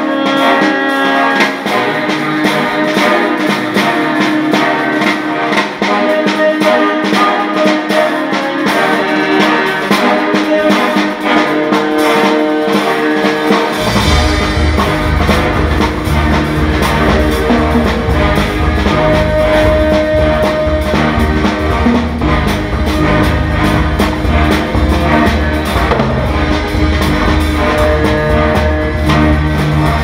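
Instrumental music played by an ensemble with drums and percussion; a low bass line comes in about halfway through.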